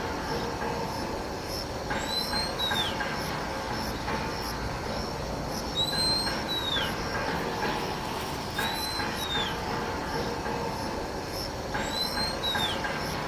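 Oriental magpie-robin calling: a drawn-out whistle that rises and then falls, repeated four times about every three seconds. It is an adult calling persistently with food in its bill, which may point to a nest nearby.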